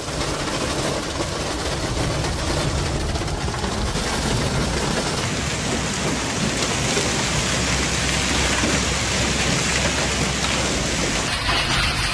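Heavy hail and rain falling in a dense, steady hiss, with a steady low rumble underneath. The sound changes abruptly near the end as the footage switches to another downpour.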